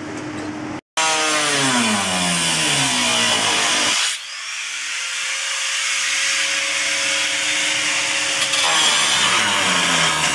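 Angle grinder with a cut-off disc cutting through sheet metal, throwing sparks. The motor's pitch sags as the disc bites, holds a steady whine for a few seconds while it runs lighter, then drops again as it bites back in near the end.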